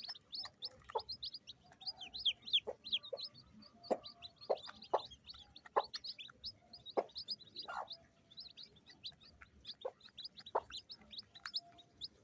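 A brood of chicks peeping rapidly and continuously in short high chirps, with a mother hen giving short, low clucks every second or so.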